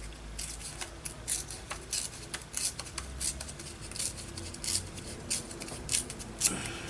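Scissors snipping paper in a run of short, crisp cuts, about two or three a second, the loudest near the end.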